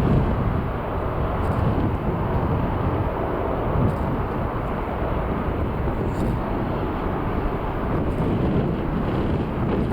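Boeing 787-9 Dreamliner's jet engines heard departing: a steady low rumble with no distinct events.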